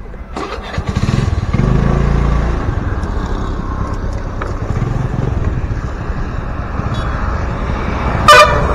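A motor vehicle engine running, growing louder about a second in and holding steady, with one short, loud horn toot near the end.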